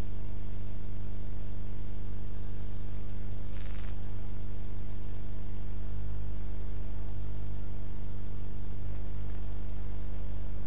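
Steady electrical mains hum, a low buzz with a faint hiss, in the recording's background. A brief high-pitched chirp sounds once, about three and a half seconds in.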